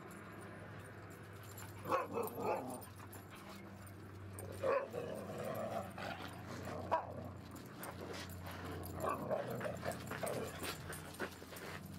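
Siberian huskies vocalizing in rough play: short barks and yips that come in bursts every couple of seconds, over a steady low hum.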